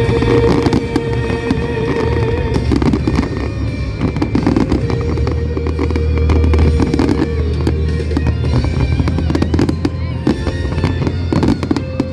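Aerial fireworks bursting and crackling in rapid, dense volleys, with deep booms underneath, over loud music played for the display.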